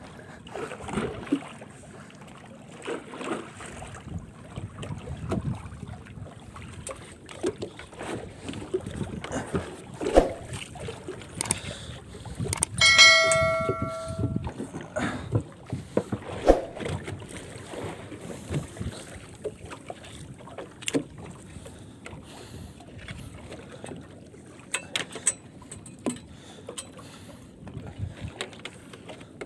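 Irregular knocks and handling noises of a longline being hauled by hand aboard a small fishing boat, with a heavy catch on the line. About halfway through, a single ringing clang lasts about a second and a half.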